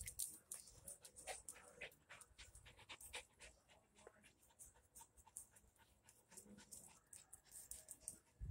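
A shaggy dog panting faintly, quick short breaths about three or four a second.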